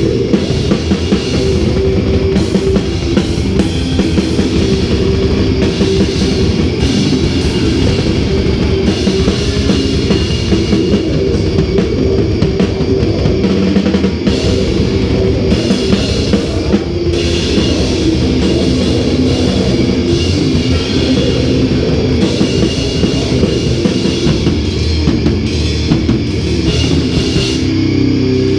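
A heavy metal band playing live, loud and without a break: a fast, dense drum kit with cymbals over heavy guitars.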